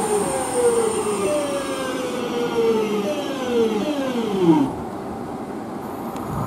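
West Midlands Railway electric multiple unit slowing along the platform, its traction motors whining down in a series of falling tones over the rumble of wheels on rail, as the train brakes toward a stop. The whine fades out about two thirds of the way in.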